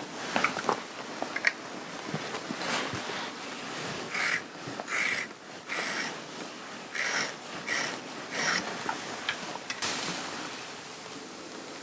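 Clothing being handled: a few light clicks, then a run of about seven quick, even swishing strokes over fabric, and a fading hiss near the end.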